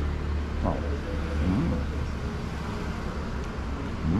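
Steady low hum of road traffic, with a few short pitched sounds that rise and fall.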